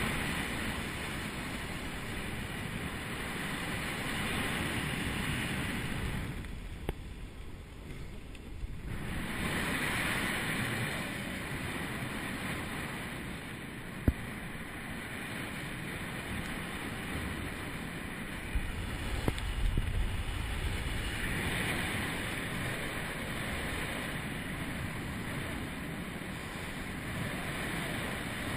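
Wind rushing over a parasailer's body-worn camera microphone during the tow flight: a steady rushing noise that drops away briefly about seven seconds in, with one sharp click about halfway through and heavier low buffeting around twenty seconds in.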